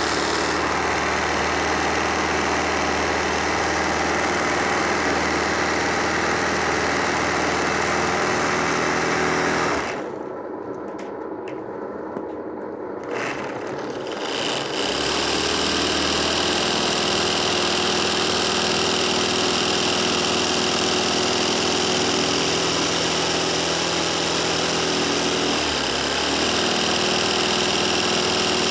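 Sewing machine running steadily, stitching free-motion embroidery on fabric stretched in a hoop. It stops about ten seconds in for roughly four seconds, then runs again.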